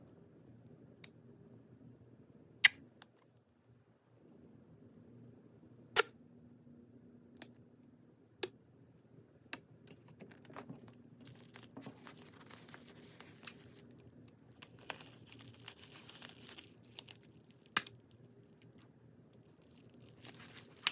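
Plastic packaging and small items being handled: scattered sharp clicks and taps, the loudest about two and a half and six seconds in, with a stretch of crinkling plastic in the middle, over a faint steady hum.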